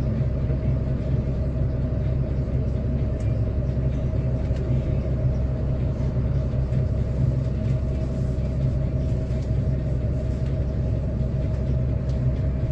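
Steady low rumble with no distinct events, its energy deep in the bass.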